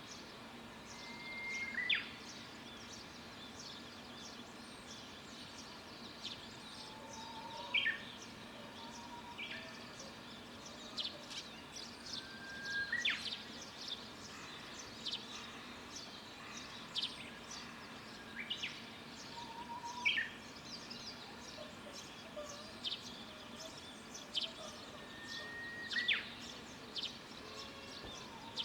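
Wild birds singing in early summer countryside: one bird repeats a song about every six seconds, a held whistle ending in a quick downward sweep, among many short high chirps from other birds.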